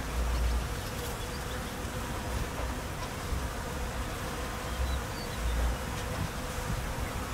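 Swarm of honeybees buzzing, a steady dense hum with a faint held tone.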